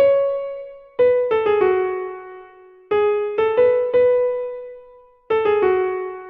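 Background music: a simple melody on an electric piano or keyboard, short phrases of struck notes that ring and fade, with a pause about every two seconds.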